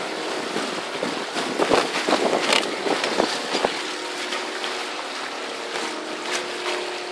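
Water rushing along the hulls of a paraw, a bamboo outrigger sailboat under sail, with wind on the microphone. A few sharp knocks and splashes come in the middle, and a faint steady hum sounds in the last few seconds.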